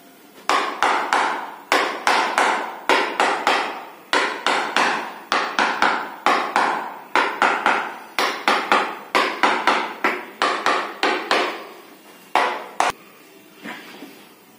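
Rapid series of sharp percussive strikes on a patient's body during chiropractic treatment, about three or four a second for some eleven seconds, then two last strikes.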